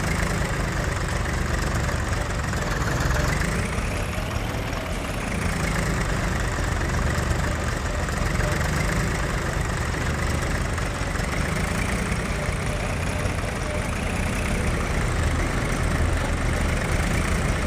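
Diesel engine of a tractor or backhoe loader running steadily, its revs rising and falling briefly a few seconds in.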